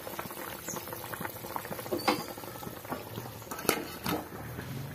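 Thick curry with okra and potatoes bubbling at a boil in a kadhai, a busy patter of small pops, with a few sharper clicks about two seconds in and again near the end.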